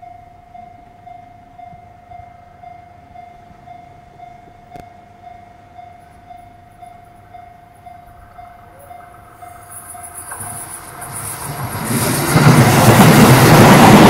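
A Japanese level-crossing warning alarm in Seibu Railway's old tone, a single electronic ding repeating about twice a second. From about ten seconds in, a train approaches and passes the crossing. The noise of its wheels and running gear grows loud and drowns out the alarm.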